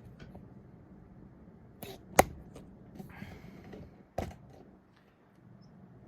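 A few sharp switch clicks, a close pair about two seconds in and another about four seconds in, over a faint steady hum, as the ceiling fan's controls are worked to start it.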